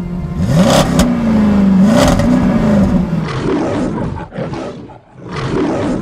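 Formula Student race car engine catching and revving up, its pitch rising sharply, holding high with a brief blip, then falling away after about three seconds. Two sharp cracks cut across it.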